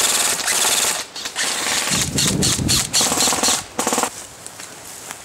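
Airsoft rifles firing rapid full-auto bursts: a fast, even rattle, several bursts in a row with short gaps, stopping about four seconds in.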